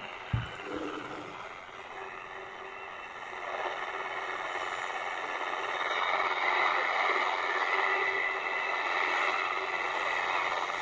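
The Firedrake jammer on 9970 kHz, heard through a Tecsun R-909 analogue shortwave radio's small speaker with its DX switch on DX: a dense, noisy, static-laden signal with a few steady tones, growing louder after a few seconds. A brief knock about half a second in as the radio is handled.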